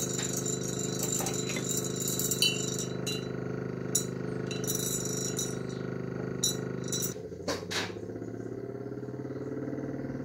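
Homemade magnetic stirrer's computer-fan motor running with a steady hum, with a few sharp clinks against the glass jar from the magnet stir bar. About seven seconds in the hum drops and changes.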